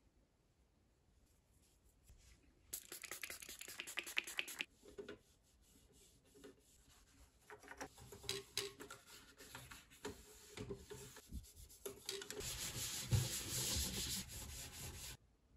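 A white wipe rubbed back and forth over the casing of a Sony SLV-X312 video cassette recorder, in stretches: a burst about three seconds in, scattered strokes and light taps through the middle, and a longer, louder stretch near the end that stops suddenly.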